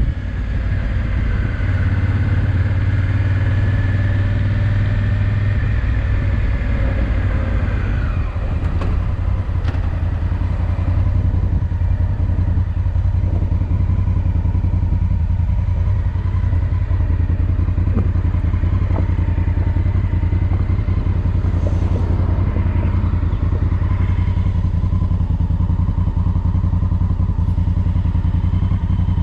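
Honda Africa Twin motorcycle's parallel-twin engine running steadily under way.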